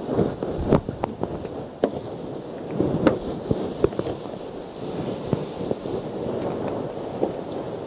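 Whiteboard eraser rubbed across the board in strokes, a scratchy wiping noise with scattered sharp knocks, most of them in the first four seconds.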